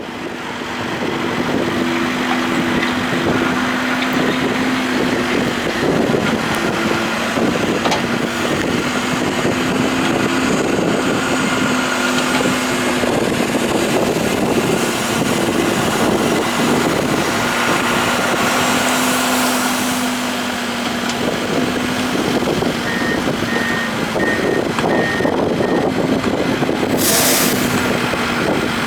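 Case 580 M backhoe loader's diesel engine running steadily as the machine works its bucket. Four short beeps sound about three-quarters of the way through, and a brief sharp hiss comes near the end.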